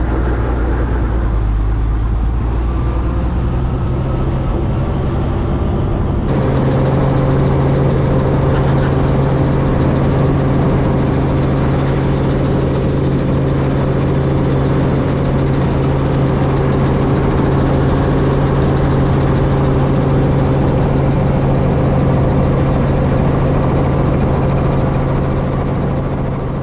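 Helicopter engine and rotor noise, a loud steady drone with a strong low hum, which shifts suddenly to a different, steadier hum about six seconds in.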